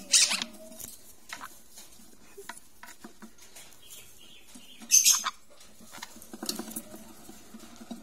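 Sun conure nest box: soft squeaking, clicking and scratching in the wood shavings as a parent feeds a chick. Two short harsh cries stand out, one at the start and one about five seconds in.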